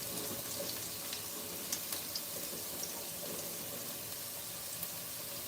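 Food sizzling steadily in hot oil in a frying pan, with a few faint crackling pops.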